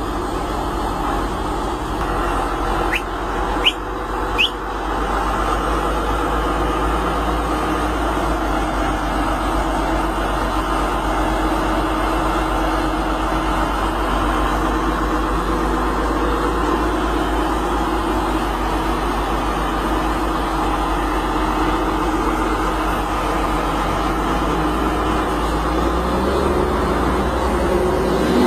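Logging truck's diesel engine running steadily, its pitch drifting slightly, with three short high squeaks about three to four and a half seconds in.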